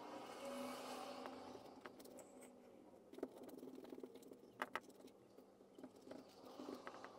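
Faint handling sounds of a glue brush dabbing and scraping paste onto papier-mâché paper, with scattered light ticks and two sharper clicks in quick succession about halfway through.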